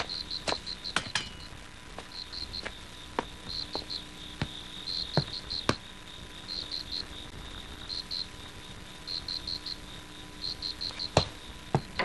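A cricket chirping in short trills of three to five high pulses, about one trill a second. Scattered sharp clicks sound over it, the loudest near the end.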